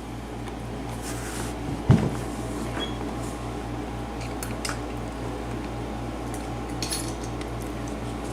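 Small metal clicks and clinks from a lock cylinder and picking tools being handled as the lock is readied for taking apart. There is one sharp knock about two seconds in, over a steady low hum.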